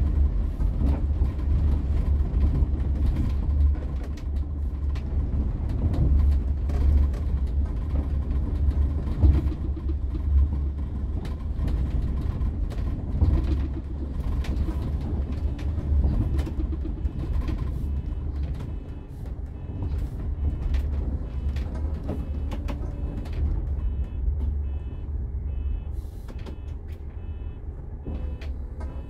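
Interior sound of a moving Setra S 416 UL Business coach: a steady low diesel engine and drivetrain rumble with road noise and small rattles from the cabin fittings. The rumble eases in the second half, and near the end a faint repeated high beeping comes in.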